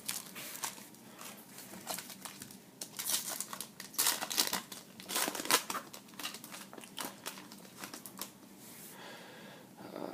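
Plastic-foil wrapper of a baseball card pack crinkling and tearing as the pack is opened: a run of crackly rustles, loudest about four and five seconds in.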